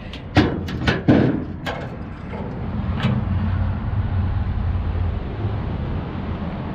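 Hood latch of a Chevrolet Bel Air being released and the hood lifted: a run of metallic clicks and clunks in the first two seconds and another click about three seconds in. A steady low rumble runs underneath from about two seconds on.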